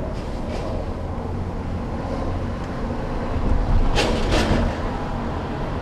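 Steady low rumble of vehicle noise, with two short whooshes about four seconds in.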